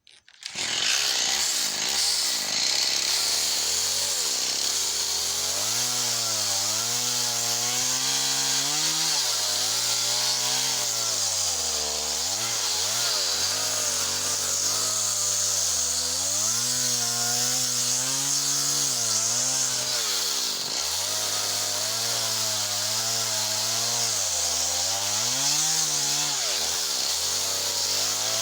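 Small chainsaw cutting into a softwood tree, starting suddenly at the very beginning; its pitch sags and recovers again and again as the chain bites under load, over a steady hiss of chain and chips.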